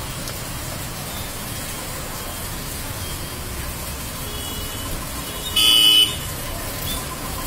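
Heavy rain pouring down on a street in a steady hiss, with a short vehicle horn honk about five and a half seconds in.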